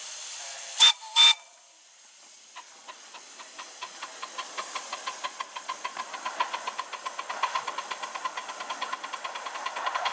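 A 7¼-inch gauge live-steam model of a PB15 locomotive sounds two short whistle toots about a second in. It then chuffs as it pulls away, its exhaust beats starting slow and quickening steadily as it gathers speed.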